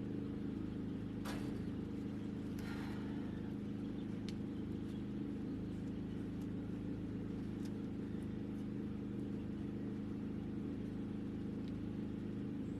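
A vehicle's engine running steadily, a low hum with a constant pitch, heard from inside the cab. A short rattle or knock comes about one second in and again about two and a half seconds in.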